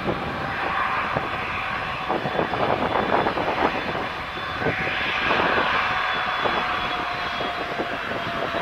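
Boeing 737's twin turbofan engines running at low taxi power, a steady jet whine and rush with faint held tones in it.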